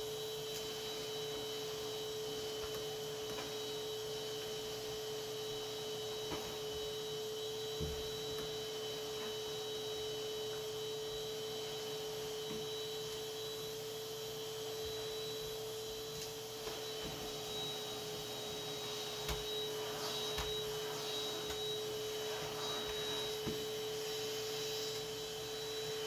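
Vacuum cleaner running steadily on carpet, an even whine-like tone over airflow hiss, with a few light knocks.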